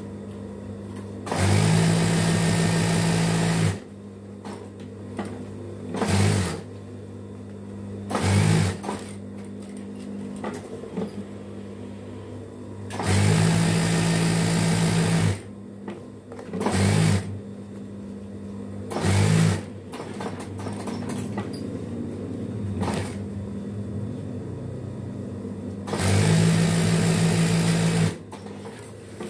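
Single-needle industrial sewing machine stitching cloth in bursts: three runs of about two seconds and several short half-second bursts. A steady motor hum continues between them.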